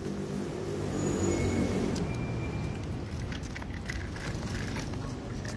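A motor vehicle engine running, loudest in the first two seconds, then light clicks and rattles from a toy stroller's small wheels rolling over pavement and a metal drain grate.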